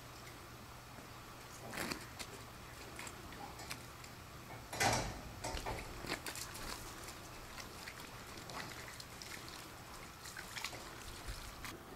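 Scattered light clicks and rattles from an LED headlamp knocking against the camcorder, with a louder knock about five seconds in, over a faint steady low hum.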